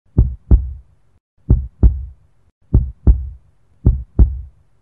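Heartbeat sound effect: four slow double beats, each a lub-dub pair of deep thumps, repeating about every 1.2 seconds, the second thump of each pair the louder.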